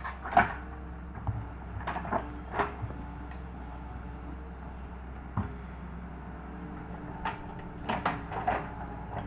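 Doosan 140 wheeled excavator's diesel engine running steadily while it digs, with scattered clanks and knocks from the bucket and arm, several in a cluster near the start and again near the end.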